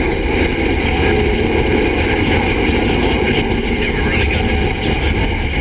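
Steady low rumble of a vehicle heard from inside its cab, with no break or change.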